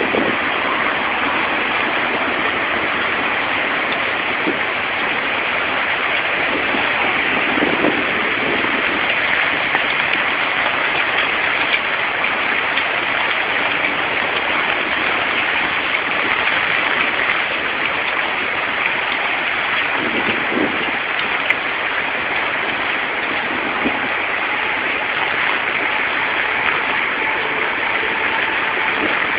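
Steady hiss of heavy rain falling on a flooded road. Twice it swells briefly as vehicles pass through the standing water.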